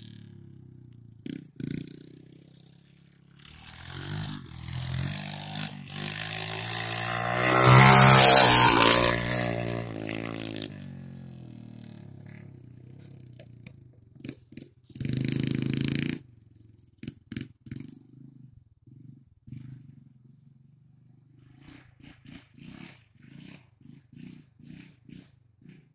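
Straight-piped 110cc Chinese pit bike's single-cylinder four-stroke engine revving up and down as it rides, loudest about eight seconds in and then fading. It gives another short loud rev burst about halfway through, and only short, scattered engine blips near the end.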